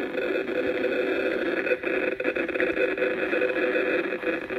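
RF meter's loudspeaker giving a steady, dense crackling buzz as it turns the radio signals it picks up into sound. The sign is of a strong signal: the iPhone's cellular transmissions and its Bluetooth pinging overlap.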